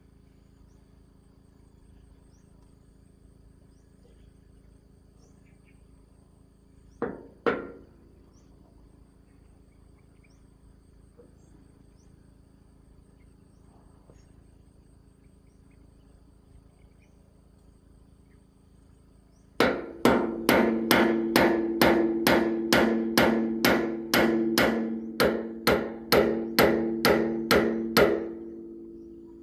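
Hammer striking metal, each blow ringing: two blows about seven seconds in, then a steady run of about twenty blows at roughly two a second near the end.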